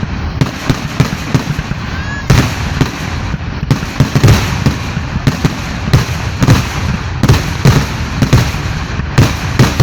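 Fireworks going off in a rapid barrage: sharp bangs several times a second over a continuous crackle.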